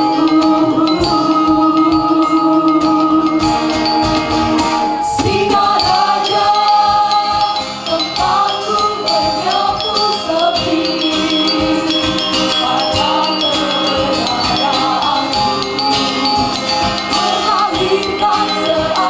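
A group of singers performing a sung poem (musikalisasi puisi) in vocal harmony through handheld microphones, over a steady beat. Held chords at first, giving way to moving melody lines about six seconds in.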